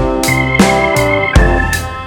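Music: sustained keyboard chords over a drum beat, with a high note held from about a quarter second in.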